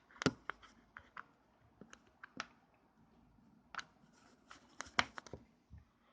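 Scattered light clicks and taps of hands handling a small plastic action camera and its charge cable.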